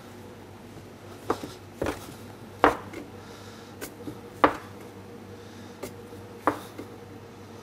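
Metal dough scraper chopping through stiff, chilled brioche dough and striking a wooden worktop: about seven sharp, irregularly spaced knocks, two of them louder than the rest.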